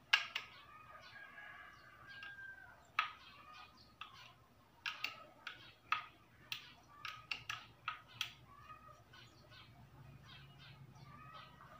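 Chickens clucking: a run of short, sharp clucks, busiest in the middle.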